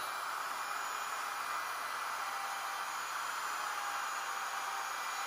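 Handheld router with a roundover bit cutting along the edge of a hickory axe-handle blank: a steady rushing whir with a faint high whine, holding even throughout.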